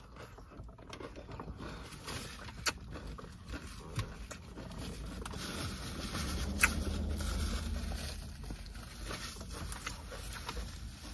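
Quiet eating sounds: salad being chewed, with a few light clicks and taps from a fork on a plastic salad container, and a paper napkin rustling. A low rumble swells in the middle.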